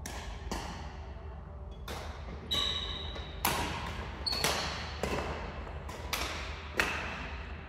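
Badminton rally in a reverberant hall: rackets strike the shuttlecock about a dozen times at an uneven pace, each hit ringing briefly. A few short high squeaks come between the hits.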